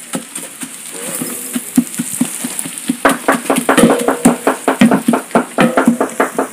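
Food sizzling in a frying pot, then from about three seconds in a spoon stirring and scraping against the pot in quick, rhythmic strokes.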